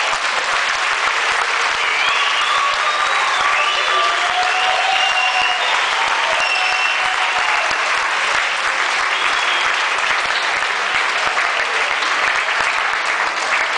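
Audience applauding steadily, a dense even clapping throughout, with a few short calls or whistles rising over it in the first half.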